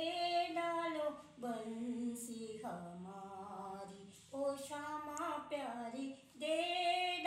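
An older woman singing a Hindu devotional bhajan unaccompanied, in long held notes with short breaks for breath.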